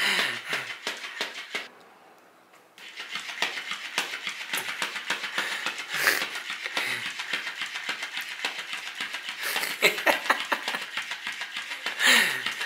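Electric flopping fish cat toy wagging its tail, a fast, steady rattle of the plush tail slapping the floor, with a short break about two seconds in.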